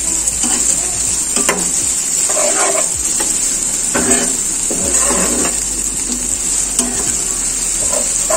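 Sliced onions and garlic sizzling in hot oil in a frying pan, stirred with a spatula that scrapes the pan roughly once a second. The onions are frying with salt to soften and turn brown.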